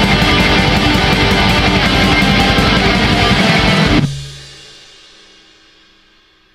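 Heavy metal song with guitar and drums, which stops abruptly about four seconds in; a low note lingers briefly and the sound fades away.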